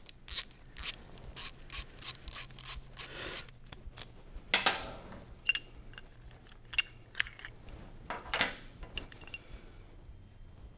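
Socket ratchet clicking in quick regular strokes, about three to four clicks a second, as the brake caliper's locator pin is backed out. The clicking stops after about three and a half seconds, then come a scrape and scattered light metal clinks as the caliper and its brake pads are handled.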